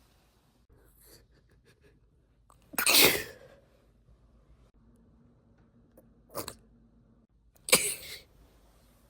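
A woman sneezing three times, deliberately induced: a loud sneeze about three seconds in, a short, quieter one a little after six seconds, and another loud one near the end.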